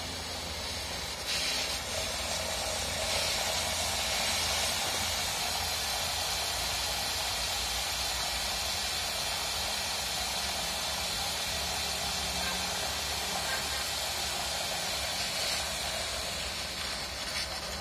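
Steam from a Nadi swedana steam cooker hissing steadily as it escapes from outlets along bent metal pipes. The hiss grows louder in the first few seconds and eases slightly near the end.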